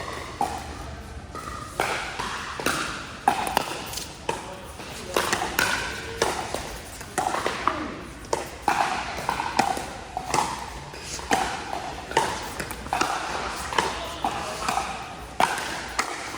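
Pickleball paddles striking the hard plastic ball in a rally, sharp pocks roughly once a second, over background chatter of players' voices.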